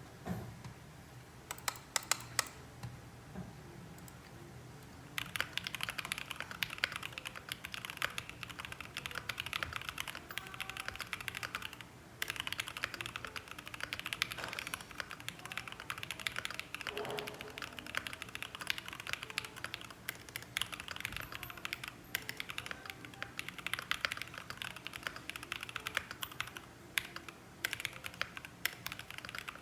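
Typing on a Rexus Daxa M61 mechanical keyboard with a brass plate, JWK Ultimate Black linear switches and PBT keycaps. A few scattered key presses come first, then fast continuous keystrokes from about five seconds in, with a brief pause near twelve seconds.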